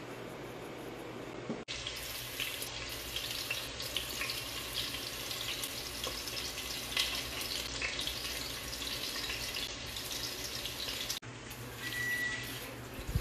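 Water running steadily, like a tap into a sink, with a fine splashing crackle. The sound breaks off briefly about two seconds in and again near the end, and a short high tone sounds near the end.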